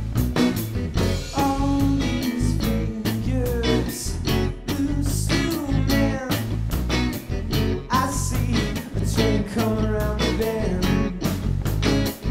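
Live rock band playing: a man singing over electric guitar, bass and a steady beat of drum hits.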